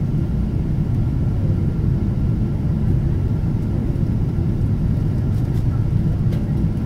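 Steady low drone of an airliner cabin in descent: jet engine and airflow noise heard from inside the plane.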